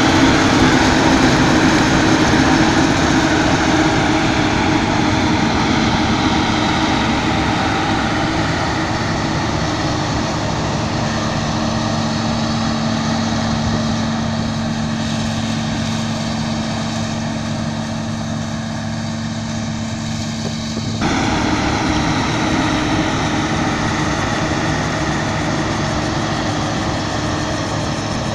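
Claas Lexion 450 combine harvester running steadily, a diesel engine drone under machine noise. About three quarters of the way in the sound shifts suddenly to a slightly louder, brighter one.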